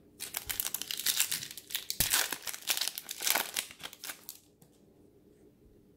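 Wrapper of a Wacky Packages trading-card pack crinkling and tearing as the pack is ripped open: a run of dense, sharp crackles that stops about four and a half seconds in.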